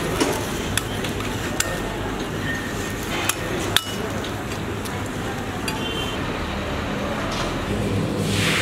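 Steel kitchen utensils clinking and tapping now and then, about half a dozen sharp clicks in the first four seconds, some with a short metallic ring, over steady background noise.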